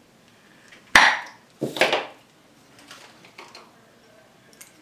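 Kitchen clatter while food is being served: two short scraping knocks from dishes and utensils being handled, one about a second in and a second one just under a second later.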